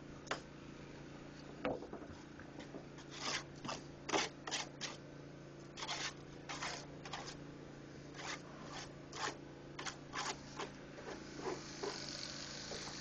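Masonry work on a concrete block wall: a run of short, irregular scrapes and taps, over a steady low hum.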